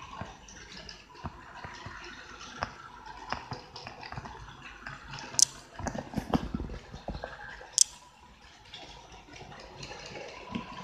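HO-scale model trains running on a layout: the steady rushing whirr of small motors and metal wheels on the track, with scattered light clicks. A few louder clicks and knocks come around the middle, two of them sharp.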